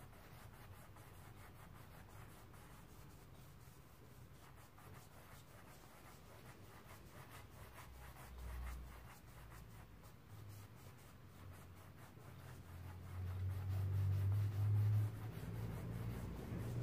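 Paintbrush rubbing oil paint across a canvas in short blending strokes, a faint scratchy sound. A louder low rumble comes in about thirteen seconds in.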